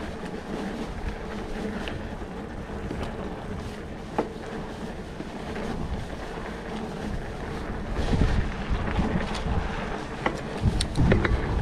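Wind rushing over the camera microphone with the tyres of a Trek Stache hardtail mountain bike rolling over a dirt trail. A sharp click about four seconds in, and the bike rattles and clicks more loudly over rougher ground from about eight seconds on and again near the end.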